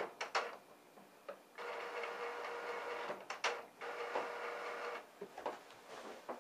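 Epson Stylus Photo PX650 inkjet printer mechanism running: two whirring motor runs of a second or so each, with sharp clicks and clunks between them and a cluster of clicks near the end.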